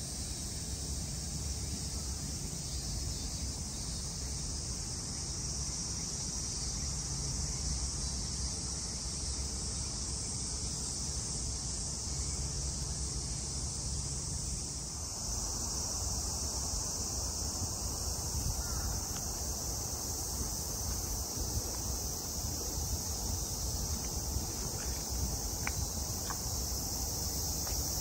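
Dense, steady chorus of cicadas: a continuous high-pitched buzz that grows louder about halfway through, over a low background rumble.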